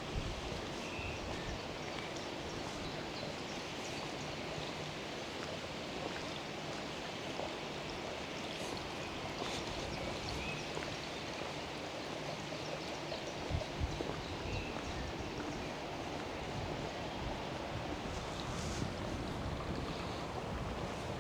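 Steady rushing outdoor ambience, an even wash of noise like moving water or wind, with a few faint high chirps.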